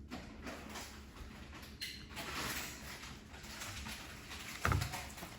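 Water sloshing and swishing in a small container as a plastic doll is pushed down and moved around in it, loudest in the middle, with a short low thump near the end.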